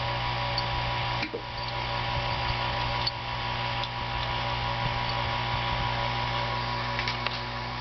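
Steady electrical hum from a vintage color TV set running, with a handful of faint, irregular ticks from its 6JE6C horizontal output tubes.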